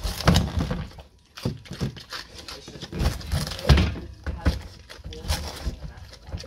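A pet pig biting into and chewing a raw butternut squash: irregular crunches and knocks, with a few louder thuds as it bites.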